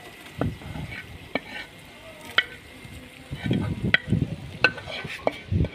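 A metal spoon scraping and knocking against aluminium cookware as sliced onions and their oil are tipped from a wok into a pot of chicken curry, with a low sizzle underneath. Sharp clicks and dull thuds come in clusters, busiest a little past halfway and again near the end.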